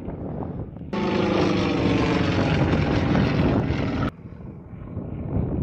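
Sukhoi Su-26 aerobatic plane's radial engine and propeller running in flight, a loud pitched drone. It cuts in suddenly about a second in and cuts off just as suddenly about three seconds later.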